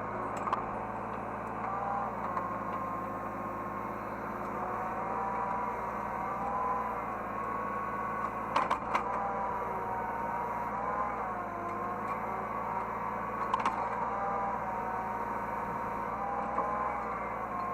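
Hydraulic excavator running, heard from inside the operator's cab: a steady engine hum with a whine that slowly rises and falls in pitch as the machine works, and a few sharp clunks, two close together about nine seconds in and one near fourteen seconds.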